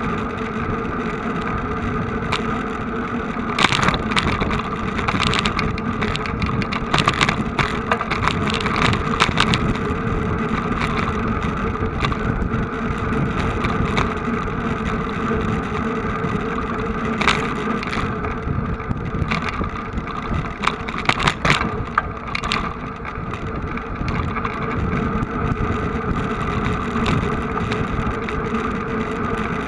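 A motor vehicle engine running at a steady speed, with a constant hum and scattered sharp clicks and knocks, bunched a few seconds in and again past the middle.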